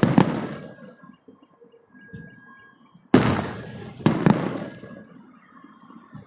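A fireworks display with loud shell bursts at the start. After a lull, about three seconds in, comes another burst, then two more close together a second later, each fading away in a long echo.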